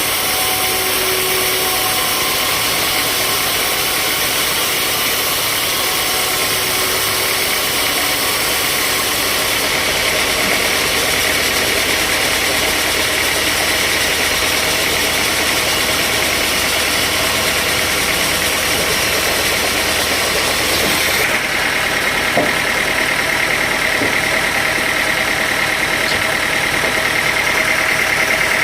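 Sawmill machinery running steadily, its sound shifting about ten seconds in and again, a little higher, about twenty-one seconds in.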